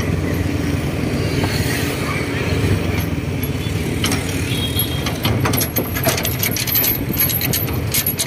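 Motorcycle engine running steadily with road noise while riding. From about four seconds in, a rapid metallic clinking and rattling comes from the towed cart jolting over the rough road surface.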